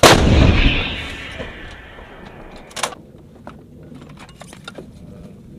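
M777 155 mm towed howitzer firing a single round: one very loud blast that rumbles and fades over about two seconds. A sharp clank follows about three seconds in, with a few light metallic clicks after it.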